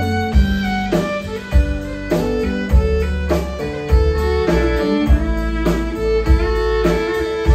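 Live country band playing, with a fiddle carrying the lead line over electric guitar, bass guitar and a steady drum beat, about one beat every 0.6 s.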